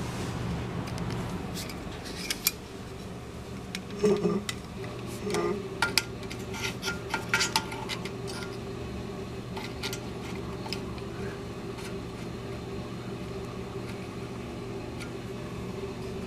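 Light metallic clicks and clinks, some with a brief ring, of a steel digital caliper's jaws knocking and sliding against the compressor's tubular steel handle as its inside is measured. They come scattered through the first ten seconds or so, over a steady low hum.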